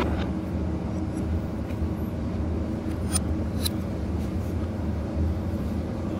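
Steady low machinery hum, with a few sharp metallic clinks as a lifeboat diesel engine's alternator is unbolted and lifted off its bracket.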